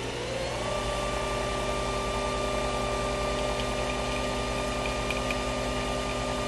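Nespresso Vertuo coffee machine brewing a capsule: a steady whirring hum from its pump and spinning capsule, with a high tone that rises and settles in the first second, as coffee runs into a mug.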